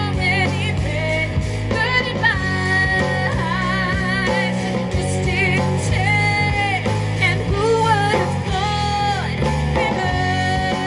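Music played on floppy disk drives, their stepper motors buzzing sustained low notes under a wavering, vibrato-like melody line.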